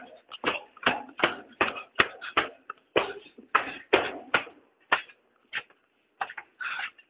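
Rustling and scuffing handling noise on a phone's microphone as the phone is moved about, in short irregular bursts two or three a second that thin out after about five seconds.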